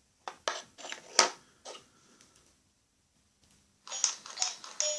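Small plastic figurines being handled and set down on a desk: a run of light clicks and knocks in the first two seconds, then more handling noise near the end.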